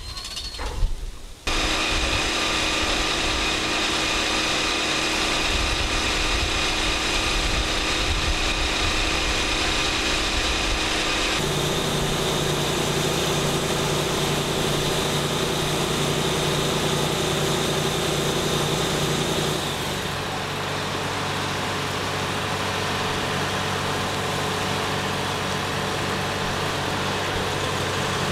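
Fire truck engine running steadily to drive its water pump, with a steady hiss over it. Its pitch changes abruptly twice.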